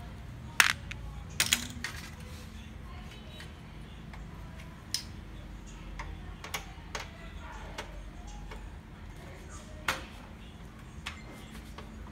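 Scattered sharp clicks and taps of a laser printer's power board and plastic frame being handled and worked with a screwdriver during disassembly. The loudest click comes about half a second in, a close pair follows at about one and a half seconds, and lighter ticks come now and then after.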